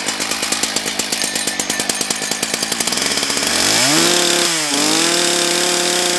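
Husqvarna 181 SE two-stroke chainsaw, just started and running on a freshly adjusted carburettor: it idles with an even firing beat, then is revved up about three and a half seconds in, dips briefly, and holds at high revs near the end.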